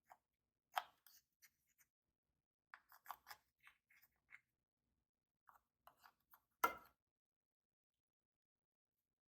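Slime being worked by hand: scattered small clicks and pops, with the loudest pop about two-thirds of the way through.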